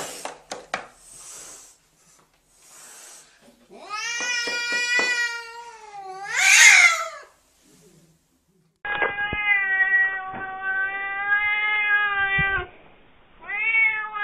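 Domestic cats hissing and yowling. A few short hisses, then a long drawn-out yowl that rises into a shrill screech, then a long steady yowl that starts abruptly and holds one pitch, with another yowl beginning near the end. These are the warning cries of a frightened or angry cat.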